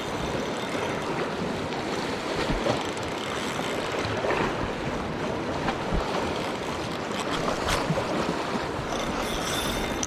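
Small sea waves washing and lapping over a rocky shoreline, with wind on the microphone.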